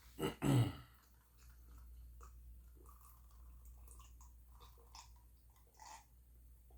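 A person chewing food with mouth noises and small smacking clicks close to the microphone, opening with two loud thuds about half a second in.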